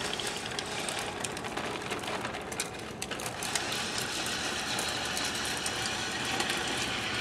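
Wheels of a large plastic toy dump truck rolling over a concrete sidewalk as it is pushed along: a steady rattling rumble with many small clicks.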